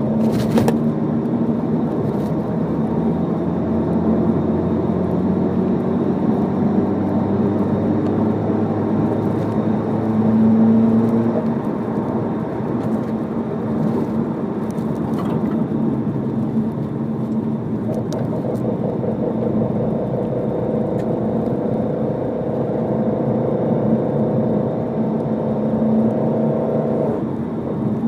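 Car engine and exhaust running steadily, with a muffler noise that the owner takes for abnormal. A higher droning tone comes in about two-thirds of the way through and stops shortly before the end.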